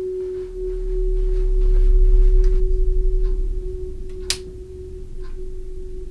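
Horror-film sound design: a steady, eerie single-tone drone under a deep rumble that swells and fades. Faint scattered ticks sound, with one sharp click about four seconds in.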